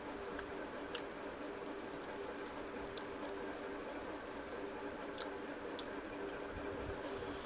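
Fingers squishing and mixing rice with curry gravy on a steel plate, with a few sharp clicks, over a steady low hum.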